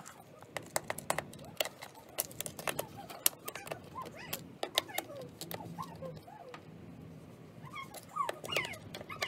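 Sharp clicks and taps of a hand handling a plastic dome-camera housing. From about four seconds in, an animal whines in high, arching calls that come more often toward the end.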